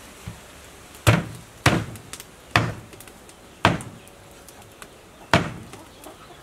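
Meat cleaver chopping pig leg on a thick wooden chopping block: five heavy chops at uneven intervals, each a sharp strike into the wood.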